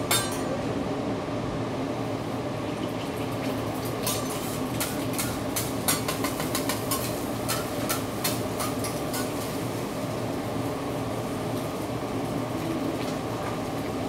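Metal spatulas clicking and scraping on a steel teppanyaki griddle as a hibachi chef works, with quick runs of taps between about four and nine seconds in, over a steady background hum.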